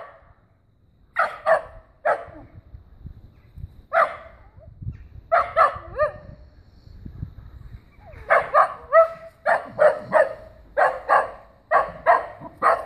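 Dachshund barking up at a cat, short barks, a few spread out at first, then coming quickly, often in pairs, from about eight seconds in.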